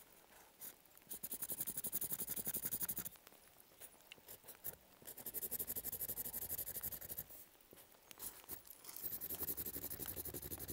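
Felt-tip marker scribbling on paper in three bursts of rapid strokes, each about two seconds long, with short pauses between.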